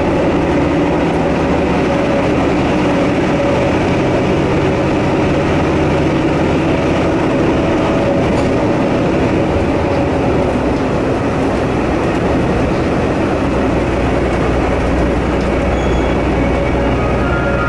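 Diesel railcar running steadily along the line, heard from inside the car as a continuous engine drone mixed with wheel and rolling noise.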